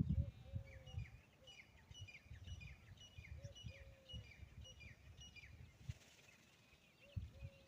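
Small birds chirping over and over in short, high, falling notes, with a few fainter, lower arched calls. Low rumbling thumps are loudest at the start.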